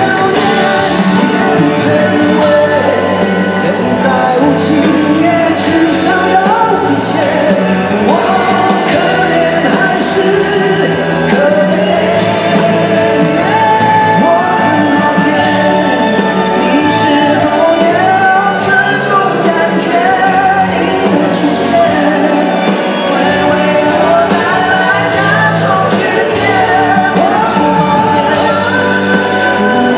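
Two male singers performing a Mandopop ballad live into handheld microphones, with full band accompaniment; the sung melody carries steadily over the band.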